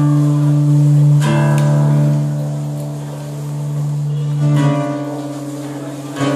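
Guitar played live, with strummed chords left to ring. New chords are struck about a second in, again near the middle and once more near the end.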